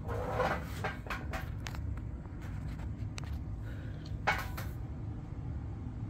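FASCO Great Room ceiling fan running with a steady low rumble, with a few irregular clicks and rustles on top, the sharpest about four seconds in.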